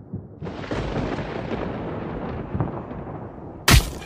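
Cartoon sound effect: a long noisy blast sets in about half a second in and slowly dies away, then a sudden loud bang near the end.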